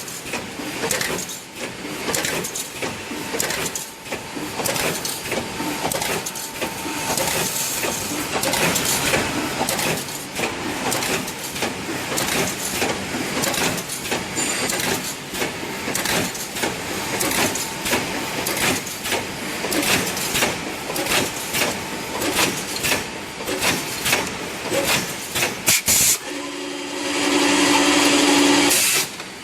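Automatic wire mesh welding machine running: a dense, irregular clatter of rapid clicks and knocks over a steady hiss. Near the end a sharp knock is followed by a steady pitched tone lasting about two seconds.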